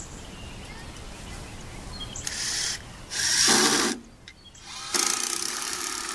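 Power drill driving screws into the wooden joists of a shed floor frame, in three runs: a short one about two seconds in, a louder one about a second later, and a longer one starting about five seconds in.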